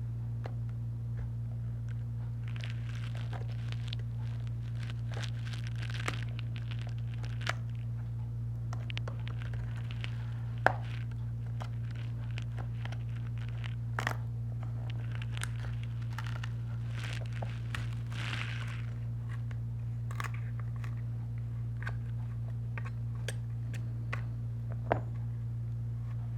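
Glued tablet display being pried away from its frame: crackling, tearing adhesive with scattered sharp clicks of a pry tool on plastic and glass, over a steady low hum.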